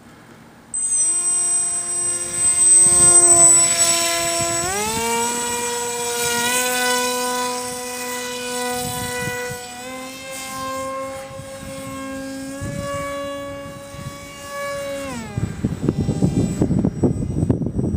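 Brushless electric motor and propeller of a small RC delta-wing plane running under throttle: a steady whine that starts abruptly, glides up in pitch about four and a half seconds in, shifts a few more times, then winds down and stops about fifteen seconds in. Wind buffets the microphone after it stops.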